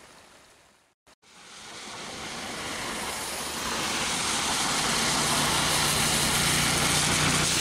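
A road vehicle approaching along the highway, its tyre and engine noise growing steadily louder and then holding at a steady level with a low engine hum. The sound cuts out briefly about a second in.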